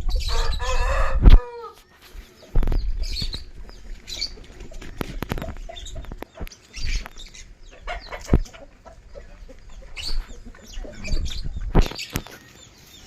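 Rampur Aseel rooster giving one short crow at the start, followed by scattered clucks and knocks.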